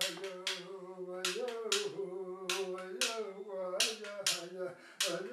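A man chanting in long held notes with small slides in pitch, over sharp beats on an Inuit frame drum struck about twice a second in an uneven, paired rhythm.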